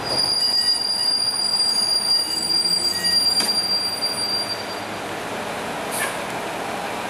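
A steady high-pitched squeal that starts suddenly and fades out after about five seconds, over a rushing traffic-like noise, with a sharp click about three and a half seconds in.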